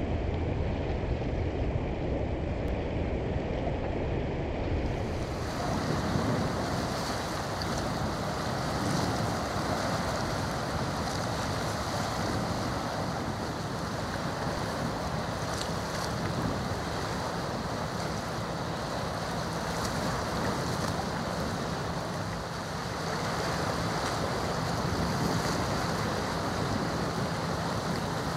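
Steady wind noise on the microphone over water washing at a shoreline. About five seconds in the sound changes to a fuller, brighter wash, and a faint low steady hum joins about halfway.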